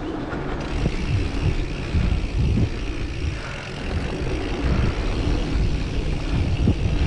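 Mountain bike ridden along a dirt forest singletrack: low, uneven wind rumble on the microphone with tyre noise and irregular knocks from bumps in the trail.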